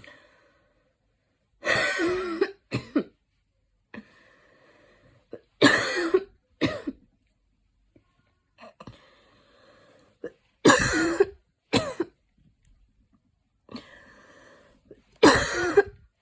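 A woman coughing after a run. There are four bouts about four to five seconds apart, each a strong cough followed by a shorter one, with faint breathing in between.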